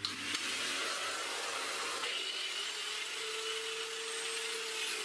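Vacuum cleaner running steadily, drawing air through the hose of a homemade PVC-plug dust shroud fitted to an angle grinder. A faint thin whine joins partway through.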